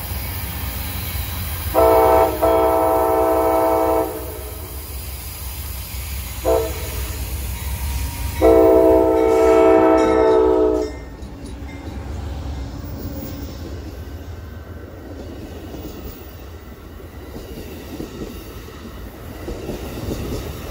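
Westbound Amtrak California Zephyr's diesel locomotive sounding its multi-chime air horn: a long blast, a brief toot, then another long blast, over the steady low rumble of the train.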